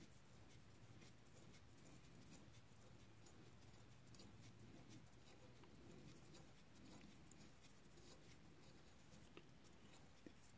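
Near silence: faint room tone with a few light clicks, one sharper about four seconds in.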